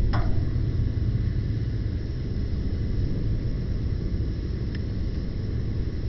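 Campfire burning: a steady low rumble with a sharp pop just after the start and a fainter crackle about three-quarters of the way in.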